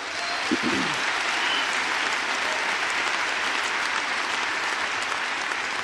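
Large audience applauding steadily, with a short falling voice calling out from the crowd about half a second in.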